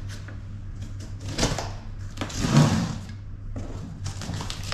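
Packing tape being slit open on a cardboard box, with two scratchy, rustling stretches of cardboard handling, the second one longer and louder.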